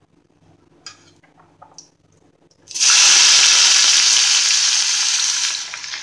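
Cumin seeds in hot oil in a kadai giving a few faint pops, then a sudden loud sizzle starts about halfway through as chopped onion hits the hot oil, easing off a little near the end.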